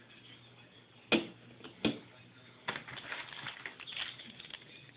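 Two sharp knocks about a second in, under a second apart, then a run of crinkling from a clear plastic packaging bag being handled.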